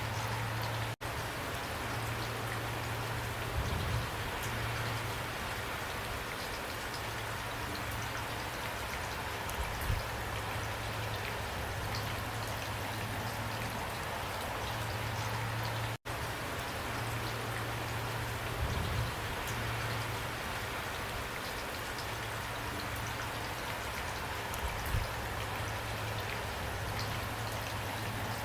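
Steady rain falling: an even hiss of drops with a low rumble underneath and a few soft low thumps. The sound cuts out for an instant twice, about a second in and about halfway through.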